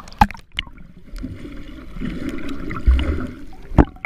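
Muffled water sloshing and gurgling around a camera held at and below the surface of shallow sea water, with a few sharp knocks, the loudest near the end.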